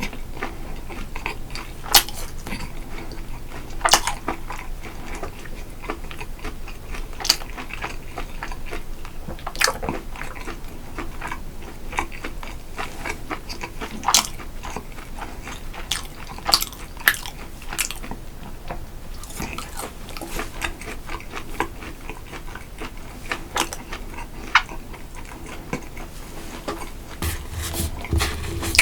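A person eating close to the microphone: continuous chewing with sharp crunches or clicks every one to three seconds.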